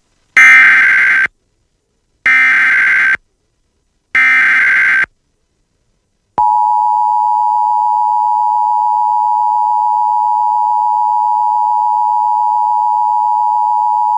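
Emergency Alert System header: three loud bursts of screeching SAME data tones, each about a second long, followed by the EAS attention signal, a steady two-tone beep held for about eight seconds. Together they announce an incoming alert.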